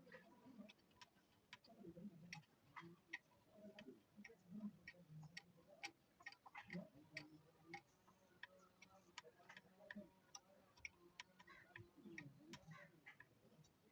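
Faint, irregular light clicks and taps, a few a second, typical of small parts and tools being handled at a workbench.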